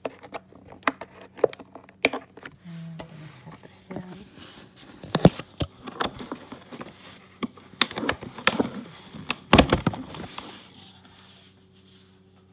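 Kitchen items being handled: a run of sharp clicks, knocks and rustles from containers and packaging, dying away about two seconds before the end.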